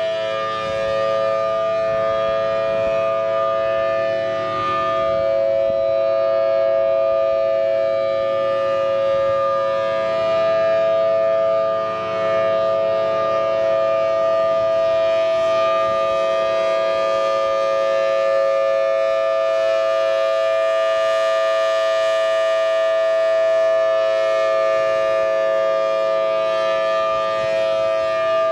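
Federal Signal Thunderbolt 1000-series outdoor warning siren sounding a steady tone made of two close pitches. The sound swells and fades gently as the rotating horn sweeps around.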